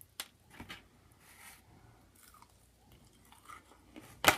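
Close-up mouth sounds of chewing a fried, breaded onion ring: scattered soft crunches and wet chewing, with one sharp, louder crunch or click near the end.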